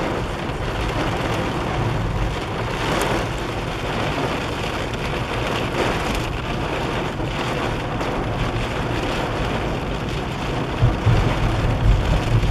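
Heavy rain drumming on a moving car's roof and windscreen, heard from inside the car, over the low rumble of the car on a wet road. Near the end the low rumble gets louder and uneven.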